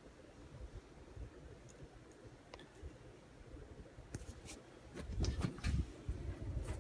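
Handling noise from the amplifier being turned over and examined: a few faint clicks and rubbing at first, then a run of louder knocks and bumps in the last two seconds.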